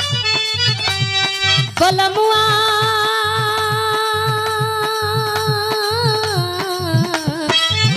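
Live Bhojpuri birha folk singing: a woman holds one long sung note for several seconds over instrumental accompaniment and a steady drum beat. The note wavers and then steps down in pitch near the end.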